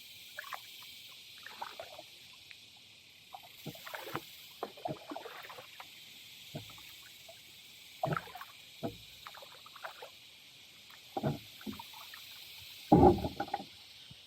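Kayak paddling: irregular paddle splashes and knocks against the plastic hull over a steady hiss, with the loudest knock about a second before the end.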